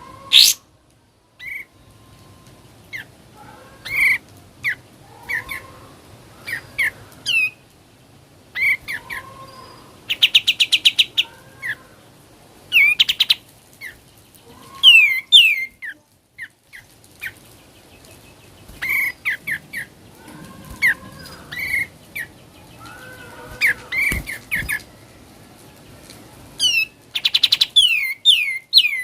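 Kapas tembak, a bulbul, singing in its 'ngebren' style: sharp chirps and quick falling whistled notes, broken twice by a fast buzzing rattle, once about ten seconds in and again near the end.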